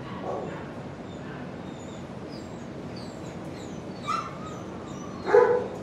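Shelter dogs in nearby kennels barking and whimpering, with short high squeaky whines through the middle and one loud bark about five seconds in.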